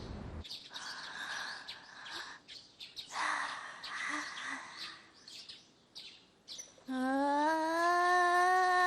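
A cartoon girl's voice making weird nonsense noises: breathy hisses and small squeaky chirps, then about seven seconds in a loud, long held vocal tone that slowly rises in pitch.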